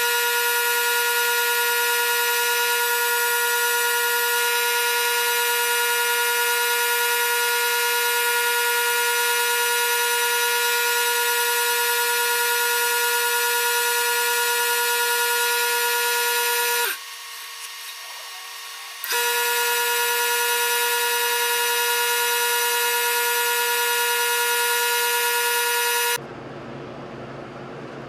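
Lathe spinning an Alumilite resin pen blank while a hand gouge cuts it: a loud, steady whine. The whine drops out for about two seconds around 17 s in, and stops about two seconds before the end.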